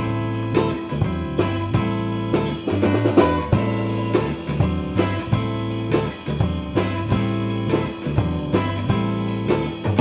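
Soundtrack music: plucked guitar with a drum kit keeping a steady beat.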